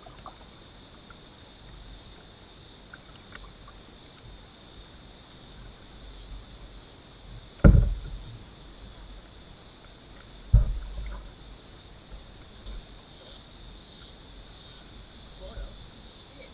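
Cicadas buzzing steadily in a high band, louder from about two-thirds of the way through. Two loud low knocks on the kayak come near the middle, about three seconds apart.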